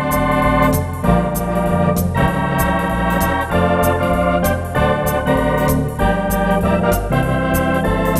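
Wersi Atlantis electronic organ played with a swinging drawbar organ sound: sustained chords that change every half second or so over a moving bass line, with a steady ticking cymbal beat on top.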